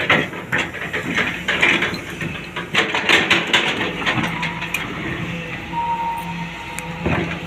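Diesel engine of a Hyundai 245 long-boom crawler excavator running under hydraulic load while it digs. Irregular knocking and scraping fills the first half, then the sound settles to the steady engine, with a brief high tone about six seconds in and a single knock near the end.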